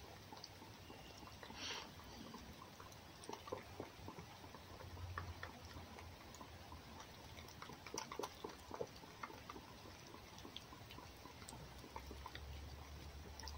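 Red fox eating egg from a hand-held enamel plate: faint wet lapping and chewing, with small irregular clicks of its tongue and teeth against the plate.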